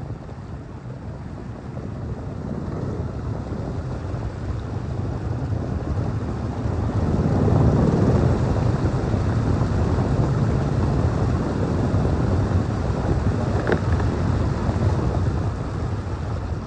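Small boat's engine running steadily under way, with wind rushing over the microphone. It gets louder about seven seconds in.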